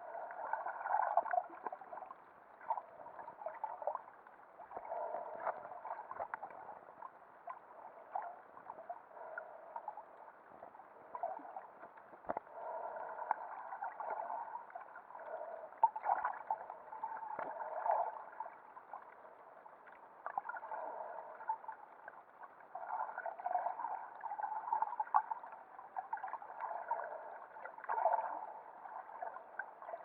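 Muffled underwater sloshing and gurgling of water, swelling and fading irregularly, with a few faint clicks.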